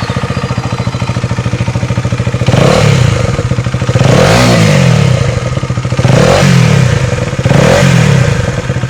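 Husqvarna Svartpilen 250's single-cylinder engine idling through an aftermarket first-copy Akrapovic exhaust with no dB killer fitted, then revved four times with short throttle blips that rise and fall in pitch.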